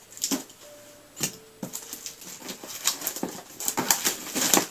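Plastic shrink-wrap being pulled and torn off a cardboard subscription box: a run of sharp crinkles and crackles that gets busier in the last second or so. A faint thin whine sounds twice in the first two seconds.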